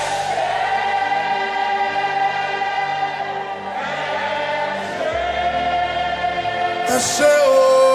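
Choir and congregation singing a slow gospel worship song in long held notes, over a soft, sustained low accompaniment that changes chord about five seconds in. Near the end a single lead voice comes in, sliding between notes.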